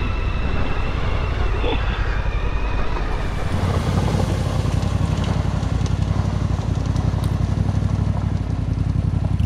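Adventure motorcycle engine running under throttle as the bike splashes across a shallow river crossing, with water spraying off the wheels. The engine's low, even beat grows stronger and steadier from a few seconds in.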